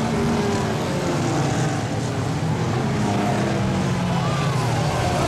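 A pack of streetcar racing saloons running their engines at race speed, a steady loud drone of several engines together whose pitches rise and fall as the cars pass.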